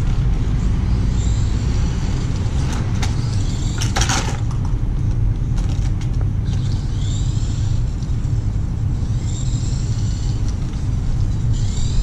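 Steady low rumble, with the small electric motor of a Tamiya Dual Rider RC trike whining in high sweeps that come and go every few seconds as it speeds up and slows. A few sharp clicks and a short burst of noise come about three to four seconds in.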